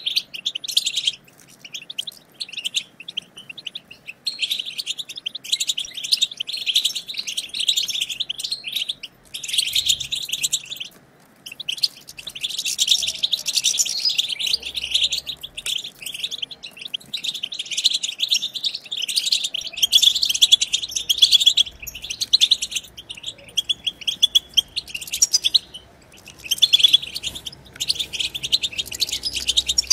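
European goldfinch twittering: a fast, dense run of high chirps and trills that goes on in long stretches broken by a few short pauses.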